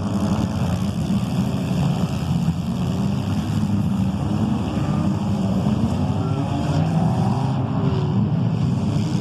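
Several compact demolition-derby cars' engines running hard together, a loud, steady, dense drone with pitch rising and falling as they rev.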